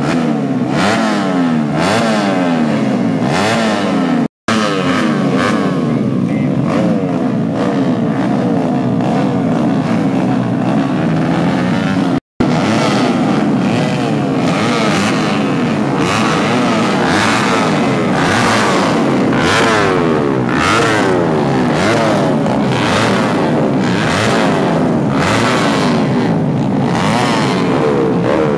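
Several bored-up 130cc four-stroke race motorcycle engines revving together on the starting grid, their overlapping pitches repeatedly rising and falling. The sound cuts out completely for an instant twice.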